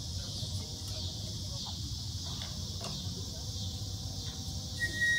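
Outdoor ambience with a steady high chirring of insects over a low background rumble. Near the end a single high note starts and is held steadily.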